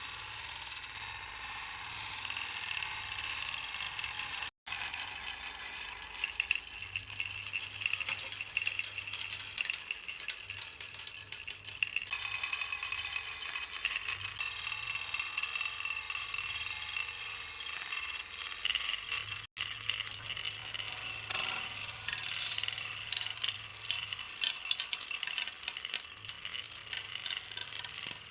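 Marbles rolling and clattering down a wooden HABA marble run: a continuous rattle of many small clicks and knocks, with a light rolling ring, broken twice by a brief gap.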